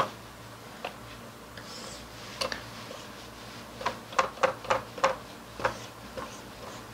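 Marker pen ticking against a whiteboard in short strokes: a couple of single taps, then a quick run of about seven ticks, as a line of small hatch marks is drawn.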